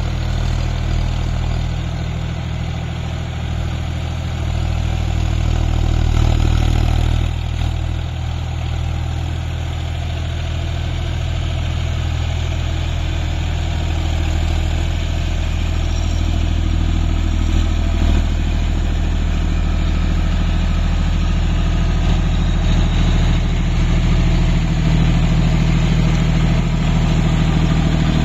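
John Deere 5050D tractor's three-cylinder diesel engine running steadily under load while the tractor drives a Shaktiman rotavator through the soil. It grows louder as the tractor comes close.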